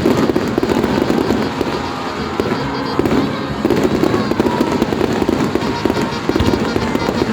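Fireworks going off continuously: a dense, unbroken run of overlapping bangs and crackles with no pause.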